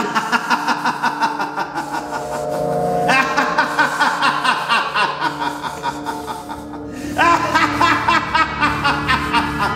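A man laughing in rapid, repeated pulses over dark background music. The laughter gets louder about three seconds in and again about seven seconds in.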